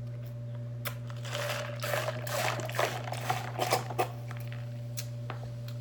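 Crunching and crinkling handling sounds at a meal table: a cluster of sharp clicks and rustles about one to four seconds in, then a few single clicks, over a steady low electrical hum.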